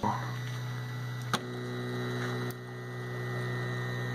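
Homebuilt 3D printer's motors running with a steady pitched hum that starts abruptly, with two short clicks about a second and two and a half seconds in.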